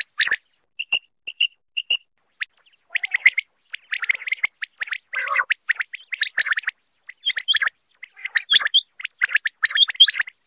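Common quail calling: a few short high pips about half a second apart, then quick bursts of rapid chirping notes.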